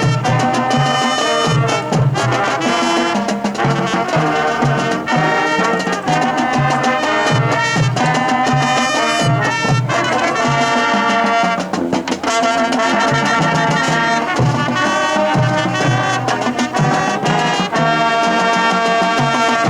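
High school marching band playing its field show: brass section sounding full chords over a steady beat of low drums.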